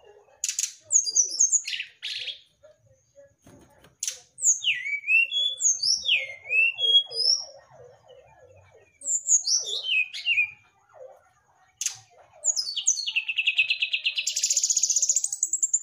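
Brown-chested jungle flycatcher singing: phrases of quick, sharp down-slurred whistles, a lower fast run of notes in the middle, and a long rapid trill rising in pitch near the end.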